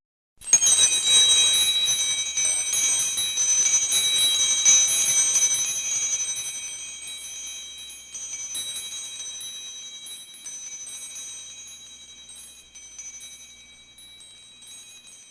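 A cluster of pack bells set jangling about half a second in, with many quick strikes over several high ringing tones. It is loudest for the first few seconds, then the strikes thin out and the ringing slowly fades.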